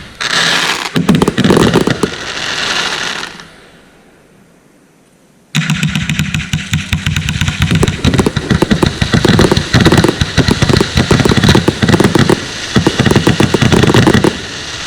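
Consumer fireworks going off: dense crackling and bangs that die away. After a quiet gap of about two seconds, a sudden rapid barrage of shots and crackle starts and runs for nearly nine seconds before stopping.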